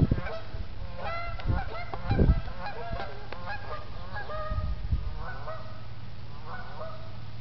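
A flock of geese honking, many short calls overlapping at first and thinning out to scattered bursts in the second half. A few low thumps stand out near the start and about two seconds in.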